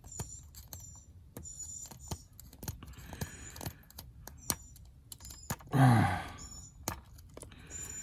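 Irregular small clicks and taps of hand tools and small parts being handled at a workbench, with a brief vocal sound about six seconds in.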